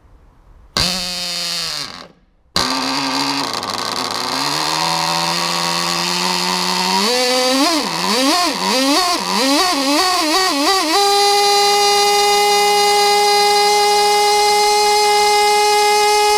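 TsSTKAM 2.5 KR two-stroke glow model engine with a single-blade propeller being hand-started. It fires briefly and dies about a second in, catches about two and a half seconds in and runs with its pitch climbing, surges up and down for a few seconds, then about eleven seconds in settles onto a steady high-pitched whine, running on its resonance pipe at close to 25,000 rpm.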